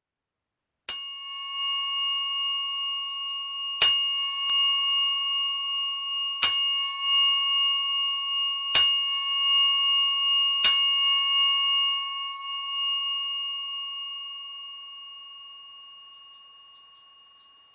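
A bicycle bell on a Steyr Waffenrad ratbike is struck five times, a few seconds apart, each strike ringing on with a clear bright tone. The last ring fades away slowly over about seven seconds.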